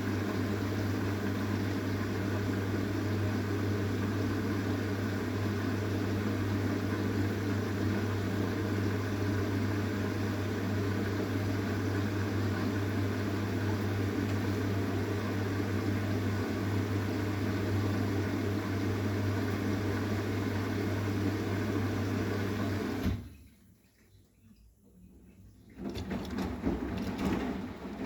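Arçelik 9120M washing machine giving a steady electric hum with rushing water, typical of its pump or water inlet valve. The hum cuts off suddenly about 23 seconds in. After a few seconds of near silence, mechanical clicking and rattling starts near the end.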